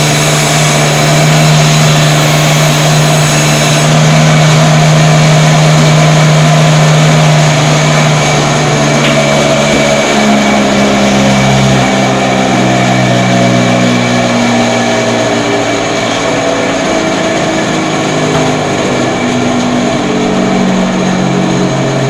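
Beef cutting machine running with a steady, loud motor hum; the hum's pitch shifts about ten seconds in.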